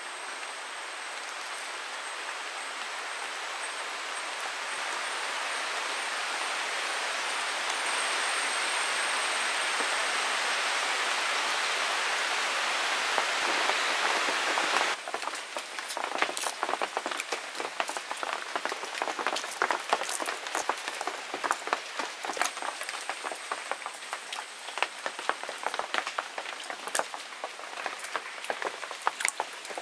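For the first half, a steady hiss that slowly grows louder, with a thin high steady tone above it. It then cuts off suddenly, and rapid, irregular crackling and clicking follow: dry, papery garlic skins being peeled and a knife tapping on a wooden board.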